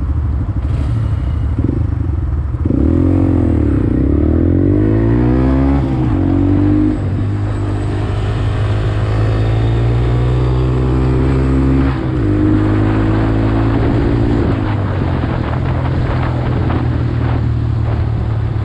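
Honda Grom's small single-cylinder four-stroke engine under way: the revs climb and fall a few times early on, then hold fairly steady, with a brief break and change in pitch about twelve seconds in, like a gear change.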